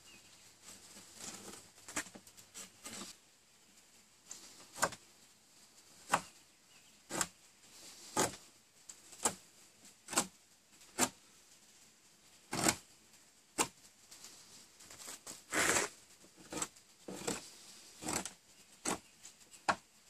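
Swiss Army knife blade shaving the corner off a pine board in short whittling strokes, each a brief scrape of wood, roughly one a second and coming faster near the end.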